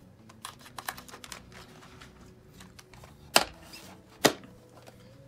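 Light clicks and taps of small parts and tools being handled during a teardown: a quick run of small clicks at first, then two sharper clicks about a second apart.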